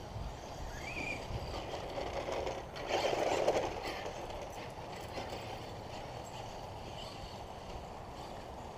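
Traxxas RC car running across a grass lawn, loudest for under a second about three seconds in as it passes close.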